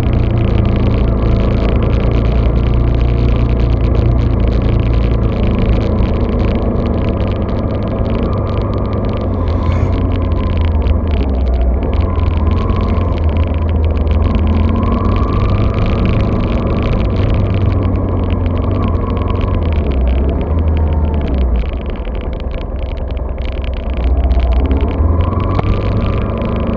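Steady low rumble of a vehicle on the move, heard muffled through an action camera's waterproof case.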